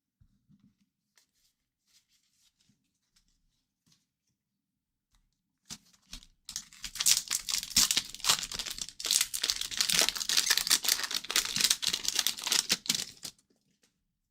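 Foil wrapper of a hockey card pack being torn open and crinkled: a dense run of tearing and crinkling that starts about six seconds in and lasts about seven seconds.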